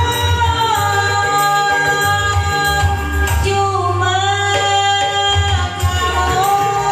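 A singer holding long, wavering notes over a backing track with a pulsing bass beat and hand-drum percussion.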